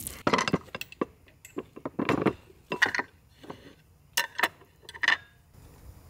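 Serving spoon and plates clinking as rice pilaf is dished out: a string of irregular knocks and clinks, some with a short ring.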